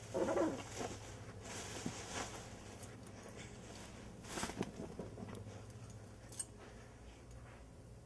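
Chihuahua puppy growling in play as it tussles with a towel: a short growl right at the start, the loudest sound, and another about halfway through, with fabric rustling in between.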